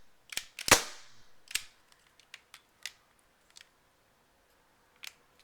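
CO2 airsoft pistol firing a single loud, sharp shot about a second in, followed by a few lighter clicks of the pistol's mechanism.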